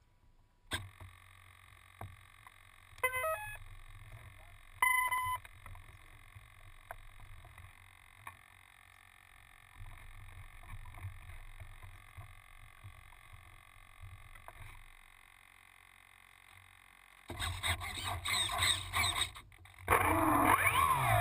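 Electric RC plane's speed controller powering up as the flight battery is plugged in: a click from the connector, then a short rising run of beep tones about three seconds in and a single beep about two seconds later, the ESC's startup and arming signal. Louder noise fills the last few seconds.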